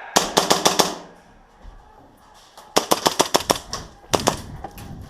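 Rapid airsoft gunfire in quick strings: about six shots in under a second at the start, about seven more near three seconds in, and a final pair about a second after that.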